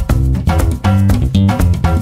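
Instrumental background music with bass and guitar over a steady beat.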